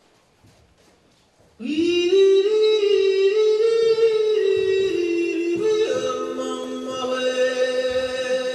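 Near silence, then about a second and a half in, music starts: a high wordless voice slides up into long held notes that step from pitch to pitch.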